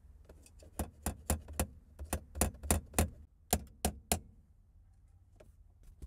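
Ratchet with a Phillips bit clicking as it is worked back and forth in short strokes on a tight Phillips screw, about a dozen sharp clicks in quick runs of three or four.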